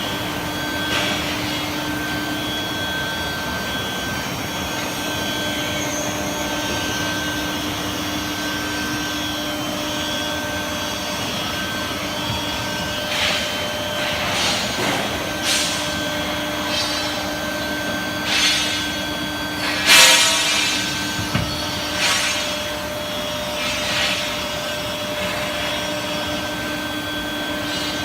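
Steady running noise of an induction hardening and tempering line, with a constant hum. Several sharp knocks come in the second half, the loudest a little past two-thirds of the way through.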